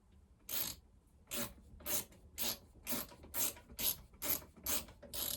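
Hand ratchet clicking in short, even strokes, about two a second, as a nut is run down on a chainsaw handlebar anti-vibration mount bolt.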